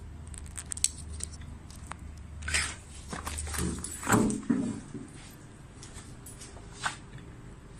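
Handling sounds of a binder clip and flashcard: small clicks in the first second, then a few brief louder scuffs and rustles, the loudest about four seconds in.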